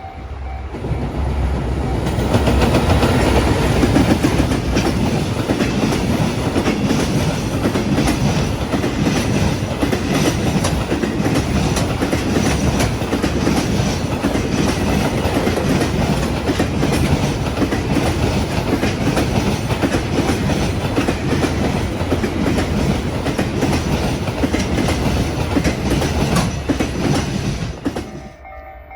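Freight train passing a level crossing close by: a steady rumble with the clickety-clack of wagon wheels over the rail joints. It swells about a second in and falls away sharply near the end as the last wagon goes by.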